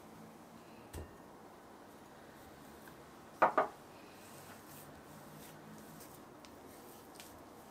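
Two sharp taps on a glass bowl about three and a half seconds in as Oreo cream filling is knocked off into it, after a faint thump about a second in. Then soft scraping and pressing as a silicone spatula works the cream against the bottom of the bowl.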